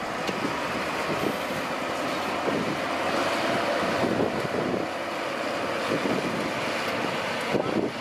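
Heavy construction vehicles running, heard as a steady rough noise with wind buffeting the microphone.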